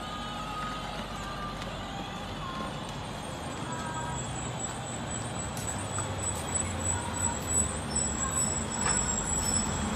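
Battery-powered ride-on toy jeep rolling along a concrete footpath: a steady rumble of its plastic wheels and small electric motor, getting a little louder and bumpier in the second half.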